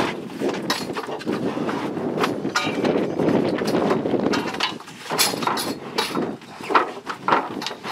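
Bull moving in a steel cattle crush: repeated knocks and rattles of the bars and chain as it shifts and lifts its head, over a rough, dense background noise.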